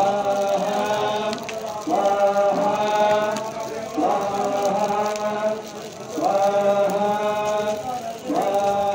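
Chanting of mantras in long held phrases on a steady pitch, each phrase opening with a rising glide, a new one about every two seconds.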